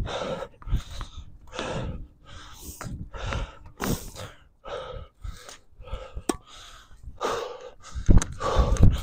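A player breathing hard during a tennis drill, short gasping breaths about two a second. A single sharp click sounds about six seconds in.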